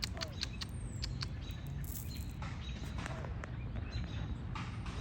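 Short high chirps and clicks over a steady low rumble, with a high whistle gliding down about half a second in.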